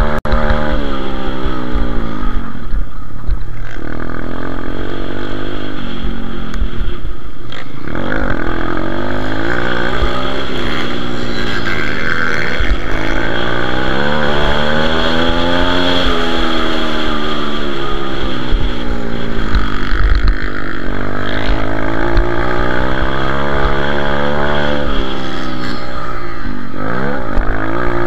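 Pit bike's single-cylinder four-stroke engine under race throttle, heard from on board. The pitch climbs and falls over and over through the gears, with sharp drops whenever the throttle is shut for a corner or jump.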